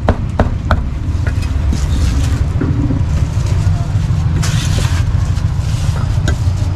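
A cleaver chops through roast pork on a wooden block three times in the first second, then stops. A steady low rumble of street traffic and background voices continues, with a brief rustle about four and a half seconds in.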